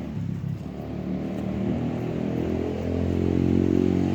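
An engine running steadily, its low hum growing louder over the last couple of seconds.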